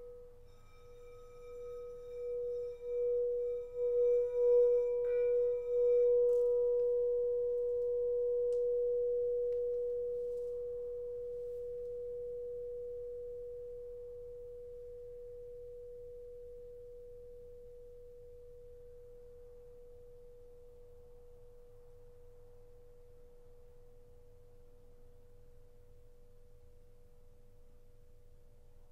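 Pressed quartz crystal singing bowl ringing one pure, steady tone that swells and dips in loudness at first; its higher overtones stop about six seconds in, and the tone then fades slowly away.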